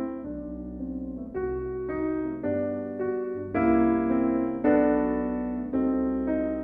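Background piano music: sustained chords that change every half second to a second.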